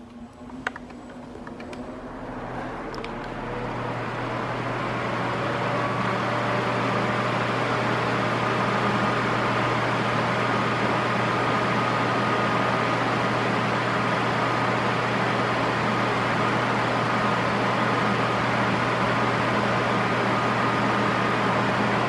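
Arno 40 cm electric floor fan switched on and spinning up. Its whir grows louder over the first four seconds or so, then it runs steadily with a low motor hum and a faint higher whine.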